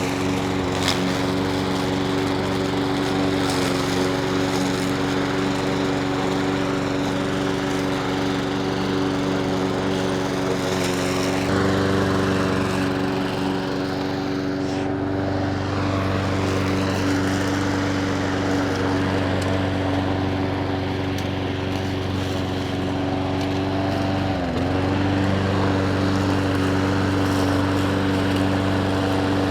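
Petrol lawn mower engine running at a steady speed. About 24 seconds in, its pitch dips briefly, as if it bogs down under load, then recovers.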